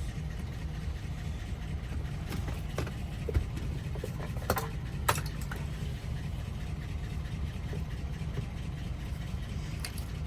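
Car engine idling steadily as a low rumble, with a few short sharp clicks in the middle.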